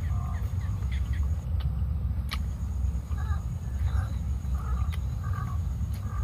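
Domestic fowl calling again and again, short calls about every half second in the second half, over a steady low rumble, with an occasional sharp click.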